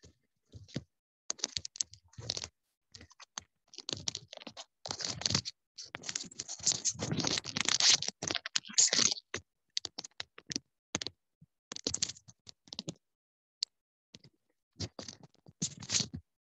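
Typing on a computer keyboard close to the microphone, with some scraping: irregular clicks, thickest and loudest in the middle.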